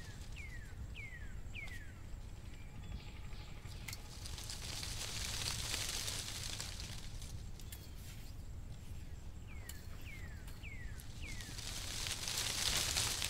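A bird calling in runs of four quick descending whistled notes, twice, over a steady low rumble. Near the end, salt being sprinkled into a wok of raw clams makes a hissing patter, the loudest sound here.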